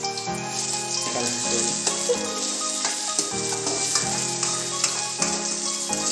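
Chopped onions sizzling in hot oil in a metal kadai, stirred with a steel ladle that scrapes and knocks against the pan now and then. Background music with held chords plays along.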